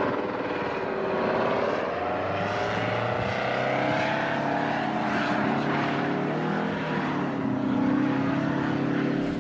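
V-22 Osprey tiltrotor's engines and proprotors droning as the prototype rolls out of control and crashes; the pitch wavers up and down over the first few seconds, then settles into a steady hum.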